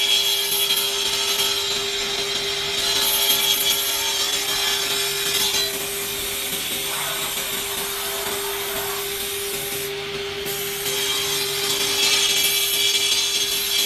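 Industrial wood-cutting saw machine running with a steady whine while cutting wooden boards, the sawing noise swelling and easing a few times.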